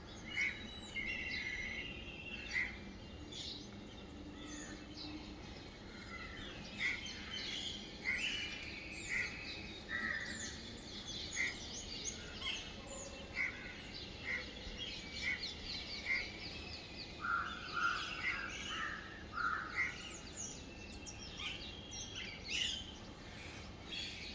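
Small birds chirping and calling, many short overlapping chirps throughout, over a faint steady background noise.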